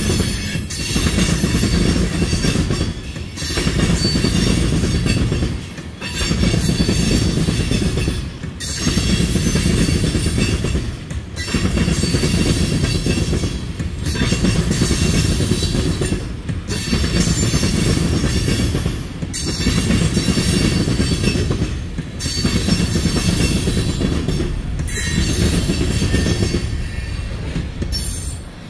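Freight train tank cars rolling past at low speed. The wheel rumble and clatter swells and dips about every two and a half seconds as each car goes by, under a thin high wheel squeal. The noise falls away at the end as the last car clears.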